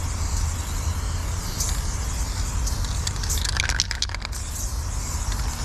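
Aerosol spray paint can hissing in short bursts as paint goes onto a corrugated metal fence. A quick run of sharp clicks comes about three and a half seconds in, over a steady low rumble.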